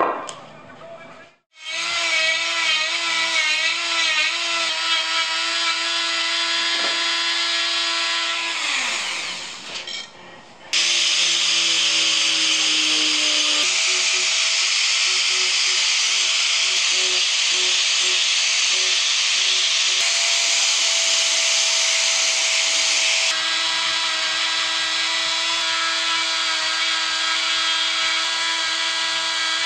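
Power carving tools working a walnut spoon in turns. A motor whines steadily and winds down, then an angle grinder with an abrasive disc grinds the wood with a loud hiss, then a flexible-shaft rotary tool with a carving burr whines as it cuts.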